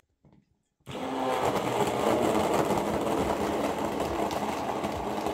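Hand-held immersion blender switched on about a second in, then running steadily as it blends milk, Oreo cookies and chocolate into a milkshake in a tall plastic cup.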